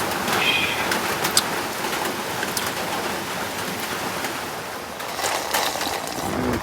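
Steady heavy rain falling, an even hiss with a few small knocks and a brief high chirp about half a second in.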